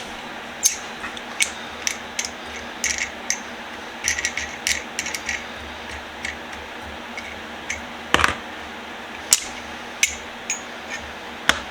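Irregular small metallic clicks and clinks as a cast iron hand vise is handled and worked apart by hand, several with a short bright ring, and two louder knocks, one about eight seconds in and one near the end.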